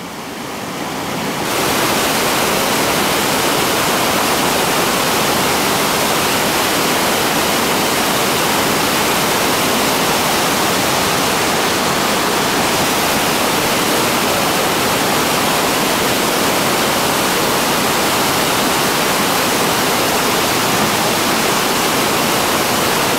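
Steady rushing roar of a whitewater rapid, water pouring over rock ledges. It swells up over the first second or two, then holds level throughout.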